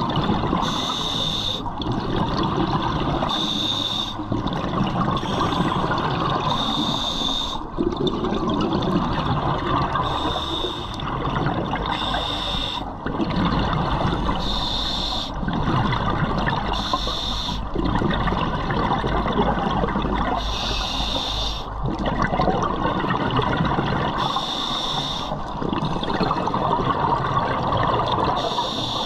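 Scuba regulator breathing underwater: a short hissing inhalation every two to four seconds, alternating with the rumble of exhaled bubbles.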